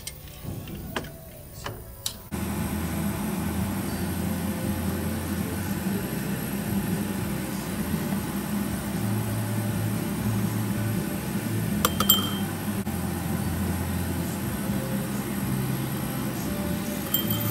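Pellets of 14k white gold casting grain clinking into a drinking glass on a digital scale, once about two-thirds of the way in and again near the end, each a short bright ring. Under them runs a steady low hum that starts suddenly a couple of seconds in, after a few light knocks.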